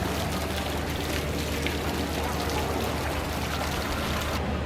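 Running water splashing steadily, a dense hiss with fine crackle over a low hum, cutting off abruptly shortly before the end.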